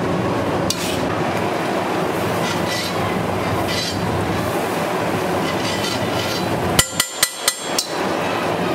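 Butter sizzling on a hot flat steel griddle with a steady hiss. About seven seconds in, a quick run of about five sharp, ringing metallic clinks as a steel spatula strikes the griddle.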